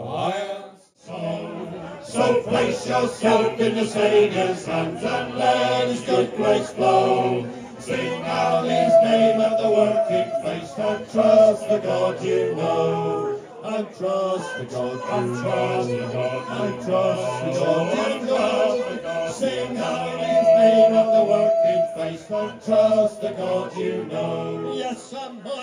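A group of voices singing a sea shanty together, starting about two seconds in after a brief lull.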